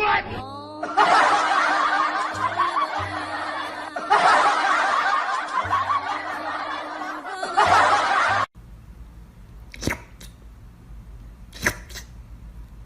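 A burst of laughter over music, cutting off abruptly about two-thirds of the way through. A low, quiet hum follows, with two sharp clicks.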